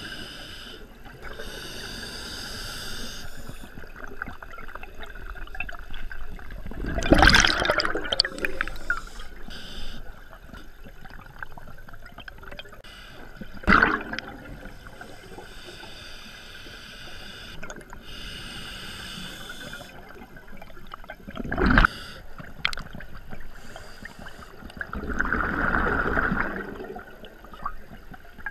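Scuba diver breathing through a regulator underwater: hissing inhalations and bursts of exhaled bubbles, the loudest bursts about seven, fourteen and twenty-two seconds in.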